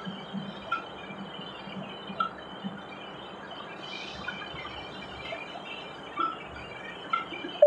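Machine-shop machinery running with a steady low hum, with light metallic clicks at irregular intervals, a few in the first seconds and two more near the end.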